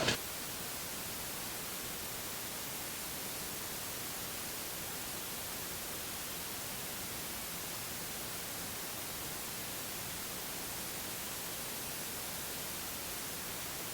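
Steady, even hiss with no other sound in it: background noise from the recording.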